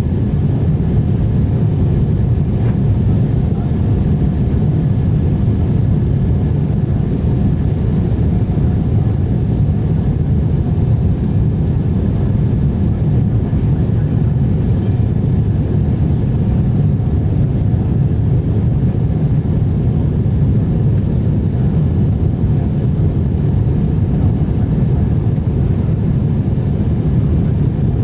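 Airliner cabin noise: a steady, unchanging low rumble of the jet engines and airflow, with a faint steady hum above it.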